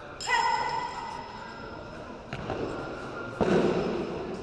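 A sharp, held shout just after the start, then a thud around two and a half seconds in, and a loud heavy thud about three and a half seconds in as a body is thrown onto the foam mat.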